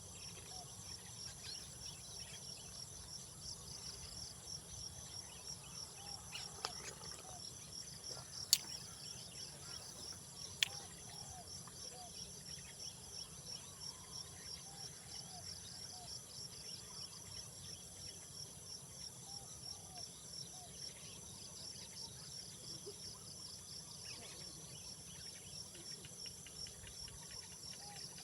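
Night-time-style insect chorus, crickets or similar, chirping in a rapid even pulse over a steady high whine, with faint short calls lower down. Three sharp clicks come between about seven and eleven seconds in.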